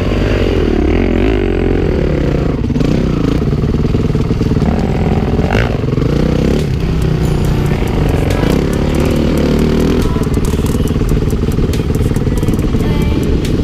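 Enduro dirt bike engine revving up and down as it is ridden over rough ground. In the last few seconds it runs steadier under rapid clicking and clattering.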